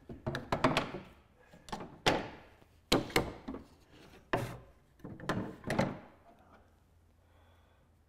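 Quick-release bar clamps being released and lifted off a wooden boat seat: irregular clicks and knocks against the wood, about ten in six seconds, then they stop.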